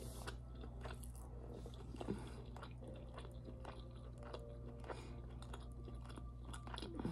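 Close-up chewing and biting of food, with small irregular crunches and mouth clicks over a faint steady low hum.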